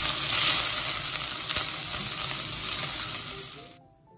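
Crushed garlic, ginger and green chillies sizzling in hot oil in a pressure cooker while a spoon stirs them, with light clicks of the spoon against the pot. The sizzle cuts off abruptly near the end, and faint music follows.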